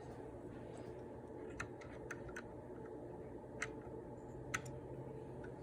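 Seven or so light, sharp clicks at irregular intervals over a steady low hum, two of them louder about two-thirds of the way through.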